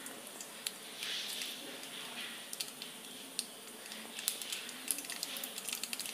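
Mustard seeds and urad dal frying in hot coconut oil in a steel pot: a steady sizzle with sharp pops as the mustard seeds splutter. The pops grow more frequent from about halfway.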